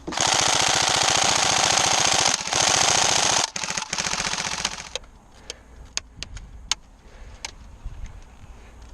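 Airsoft electric rifle, a Tokyo Marui SCAR-L, firing on full auto: a long rapid burst of about three and a half seconds with a short break, then a second shorter burst. After that, scattered single sharp snaps.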